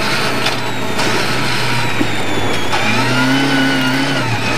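Lada 1200's inline-four rally engine running hard inside the cabin. Its note slowly falls, then changes about three seconds in to a new, stronger note as the car goes into a sharp right-hand corner on snow.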